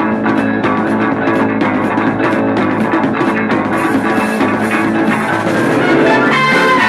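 Instrumental music with guitar, bass and drum kit, a steady beat throughout.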